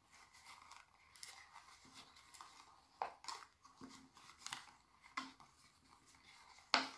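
Soft rustling of stretchy sock-cuff loops, with light plastic clicks from the cut plastic cup they are woven on as it is handled and turned. There are a few sharper clicks, the loudest near the end.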